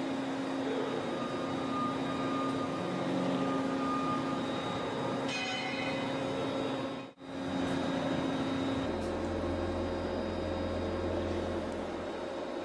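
Steady machine hum made up of several held tones over a noisy background. A brief higher whine comes in about five seconds in, the sound drops out for a moment about seven seconds in, and a deeper low hum joins about two seconds after that.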